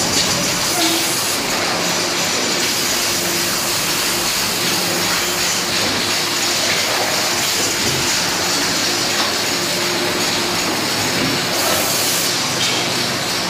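Steady running noise of an aluminium cookware production line: a continuous mechanical hum and rattle under a constant hiss. The hiss grows stronger for about a second, about a second and a half in and again near the end, as puffs of vapour blow out of the machine.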